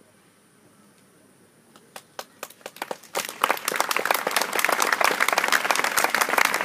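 Audience applause: after about two seconds of near quiet, a few scattered claps start and quickly swell into full, steady clapping.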